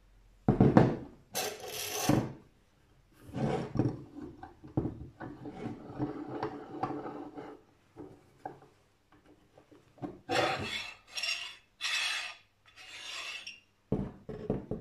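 Bessey pipe clamp jaws slid along a metal pipe: a series of metal-on-metal scraping strokes, each about a second long, with a few knocks near the end.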